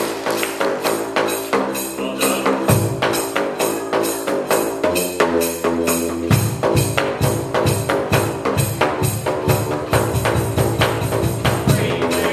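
A tune played on tuned plastic drain pipes struck with flip-flops: quick hollow slaps in a steady rhythm, several a second, with pitched notes that change every second or two, and a tambourine jingling along with the beat.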